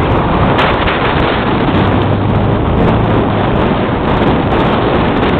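Wind buffeting the camera's microphone over the steady rumble of a vehicle driving along.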